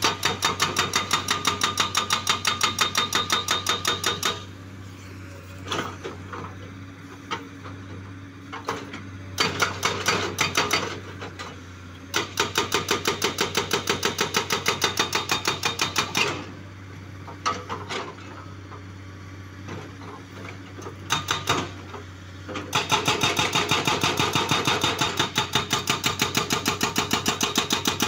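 Hydraulic rock breaker on a Komatsu excavator hammering a boulder: long runs of rapid, evenly spaced chisel blows, about four bursts of several seconds each. Between the bursts the excavator's engine keeps running.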